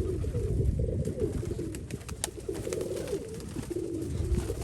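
Several Nikolaev pigeons cooing continuously in overlapping, wavering calls, with scattered light clicks.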